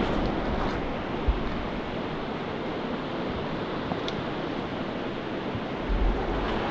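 Steady rush of a river flowing, with a low thump about a second in and a short low rumble near the end.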